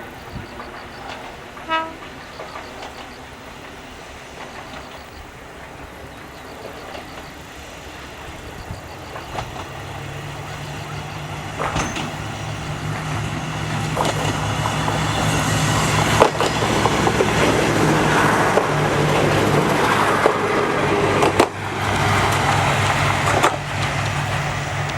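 Kominato Railway diesel railcar approaching and passing over a level crossing: a short horn toot about two seconds in, then the engine's steady drone growing louder from about ten seconds in, with sharp wheel clacks over rail joints every few seconds as it runs by.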